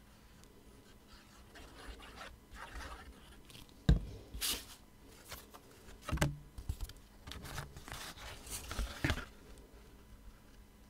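Card stock being handled and slid about on a cutting mat, with short papery rustles and scrapes. About four seconds in comes a sharp knock as a plastic glue bottle is set down, and a softer knock follows about two seconds later.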